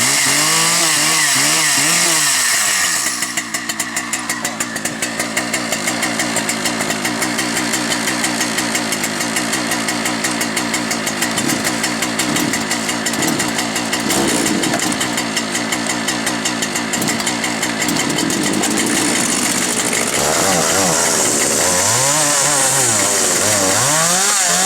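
Big chainsaw running: its engine revs up and down, then settles into a long cut with a fast, even rattle from about three seconds in, and revs up and down again near the end.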